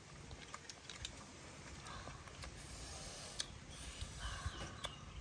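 Scattered light clicks of cooked snail shells being handled and picked at with pins, with soft eating sounds between them.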